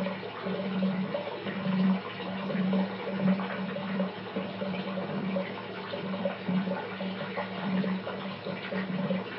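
Water running from a tap into a filling bathtub: a steady rush with a low hum that wavers in strength.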